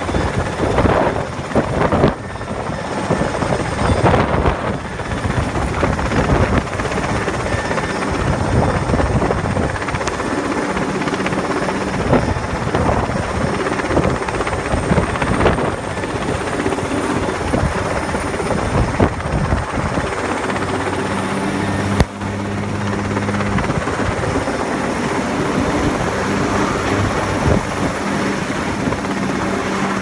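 Sikorsky S-58ET cargo helicopter hovering close overhead with a sling load, its rotor beat and engine drone loud and steady; a low steady hum comes in about halfway through.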